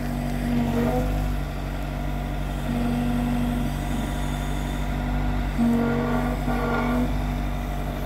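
Bobcat T66 compact track loader's diesel engine running, with a steadier higher hum that cuts in and out about four times as the machine is worked.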